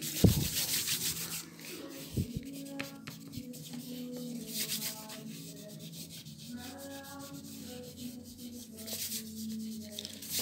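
A hand rubbing over the surface of a paper painting, giving dry, scratchy strokes. They come strongest in the first second or so, again around the middle, and near the end.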